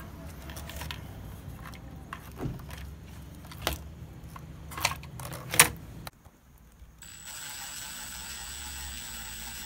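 Shrink-wrapped battery pack knocking and scraping against the scooter deck's battery compartment as it is pressed into place: a handful of sharp knocks over several seconds, the loudest about five and a half seconds in. After a brief drop in sound, a steady low hum with a faint high whine.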